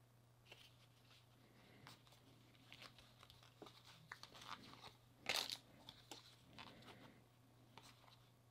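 Faint rustling and small clicks of a stack of 2021 Topps baseball cards being thumbed through by hand, with one brief, louder rasp of card on card about five seconds in.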